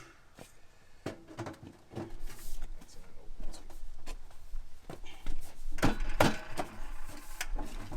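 Scattered knocks and clunks of parts being handled and taken apart, with two louder knocks about six seconds in.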